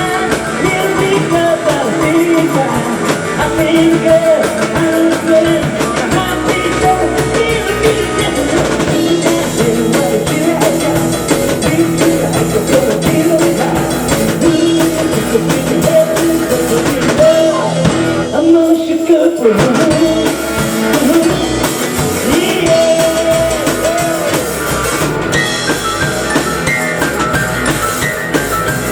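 Live rock and roll band playing: singing over electric guitar and drum kit. About two-thirds through, the bass and drums drop out for a moment.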